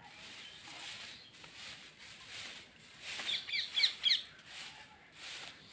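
Broom sweeping dry fallen leaves over bare earth, repeated swishing strokes about two a second. A bird chirps a quick run of notes about three to four seconds in, louder than the sweeping.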